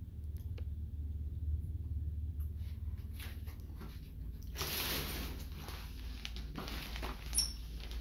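Shower curtain being pushed aside: two rustling swishes about a second and a half apart, then a short sharp scrape near the end, over a low steady rumble.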